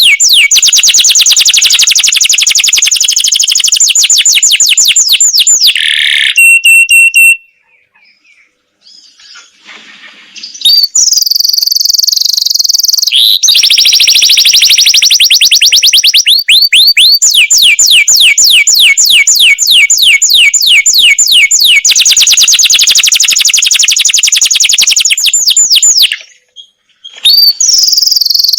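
Canary singing long rolling trills: fast runs of repeated high notes, about ten a second, broken by a few steadier high notes. There is a pause of a few seconds about a quarter of the way in and a brief one near the end.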